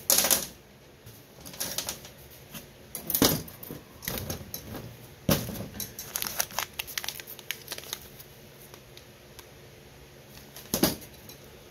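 Paper-wrapped packets of Mosin rifle cartridges handled and pulled from a metal ammo tin: crinkling paper and twine with bursts of small clicks, and a few sharper knocks against the tin, the loudest just after the start, around three and five seconds in, and shortly before the end.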